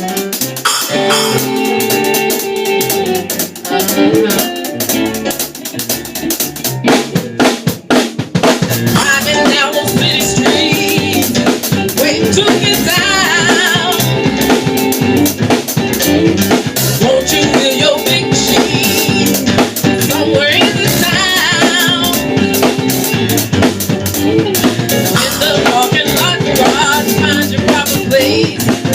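Soul and R&B band music with a drum kit prominent: snare, rimshot and bass drum under a sustained backing. About seven seconds in comes a busy run of drum hits, after which the full band carries on with a wavering melodic lead.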